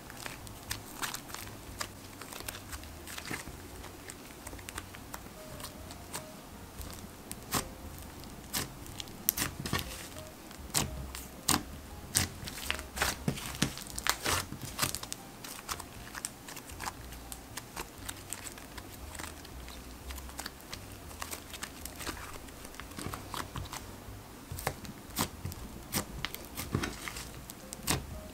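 Slime being squished, poked and stretched by hand, giving many short, sharp clicks and crackles, over soft background music.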